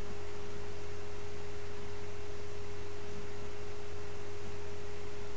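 A steady single tone, held at one pitch without a break, over a low hum and hiss.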